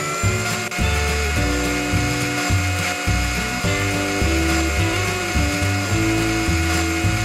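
Toy blender's small electric motor running with a steady high whine, over a simple electronic tune.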